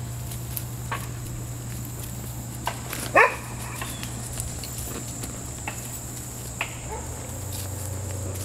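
A German Shorthaired Pointer puppy gives one short, high yelp about three seconds in, over a few faint scattered ticks and a steady low hum.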